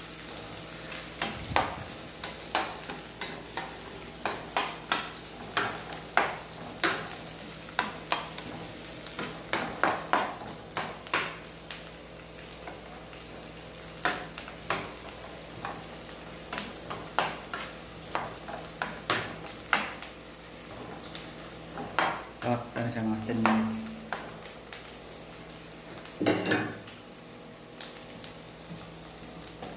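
Chopped onion and garlic sizzling in oil in a nonstick frying pan, with a spatula scraping and tapping against the pan as it is stirred, giving many quick clicks over the sizzle. A brief louder low hum comes about three-quarters of the way through.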